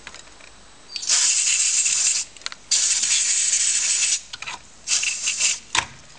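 Aerosol can of isopropyl alcohol spraying through its straw nozzle into the stuck brightness and contrast potentiometers of a TRS-80 Model III, to loosen them. Two long hissing bursts of a second or more each, then a few shorter spurts near the end.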